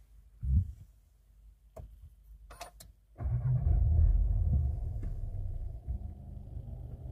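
A low thump and a few sharp clicks, then about three seconds in the Seat Tarraco's 1.5 TSI four-cylinder turbo petrol engine starts. It catches suddenly, runs loudest for a moment, then settles to a steady idle.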